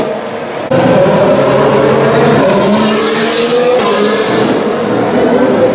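Formula 1 car's 1.6-litre turbocharged V6 hybrid engine running at high revs on track. The sound drops briefly at the start, then comes back suddenly and loud about 0.7 s in and holds at a fairly steady pitch.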